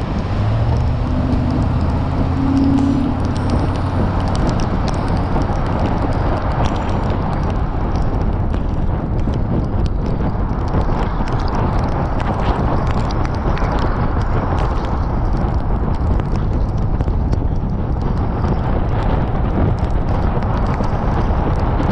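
Wind buffeting the microphone of a camera on a moving vehicle, mixed with road and tyre noise on wet pavement. In the first few seconds a low engine hum rises as the vehicle pulls away from a turn, then the noise stays steady.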